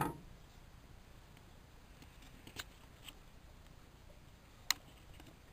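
A small wooden offcut knocks down onto a workbench, then a quiet background with a few faint ticks and one sharp click near the end.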